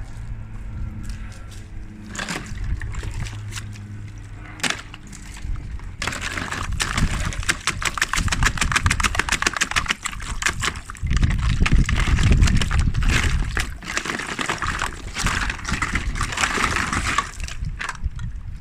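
Ice cubes being tapped, scraped and crunched: scattered clicks over a low rumble, then about six seconds in a dense run of crackling and crunching, heaviest a little before the middle of the second half.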